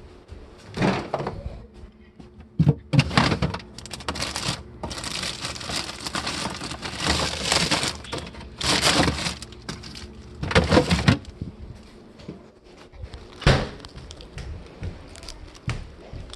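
Lettuce leaves being handled and torn: repeated bursts of crisp crackling and crinkling, some several seconds long.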